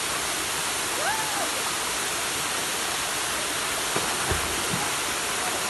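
Steady rush of a waterfall pouring into a rocky pool. About four seconds in there is a soft splash as a person dives into the water, and about a second in a short high call rises and falls.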